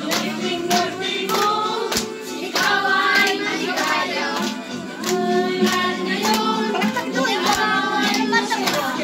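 A song sung by a group of voices, with a sharp beat, claps or a drum, falling about every two-thirds of a second.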